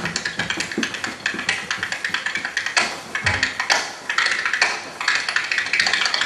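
Dancing feet tapping on a wooden floor: rapid, irregular clicks and taps in quick runs, with a brief pause about three seconds in.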